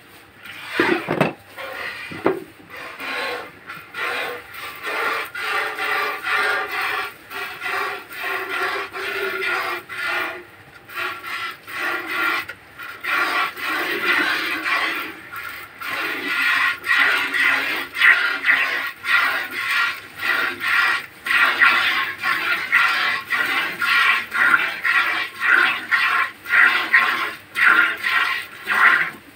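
Hand-milking: rhythmic squirts of milk streaming into a plastic bucket, about two a second, hissing and splashing into the milk already collected. The squirts grow louder from about halfway through.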